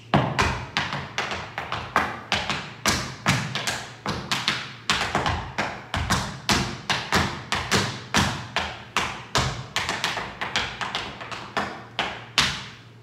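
Tap shoes' metal taps striking a wooden floor in a tap-dance combination: a quick, uneven run of sharp clicks, several a second, with louder accented strikes.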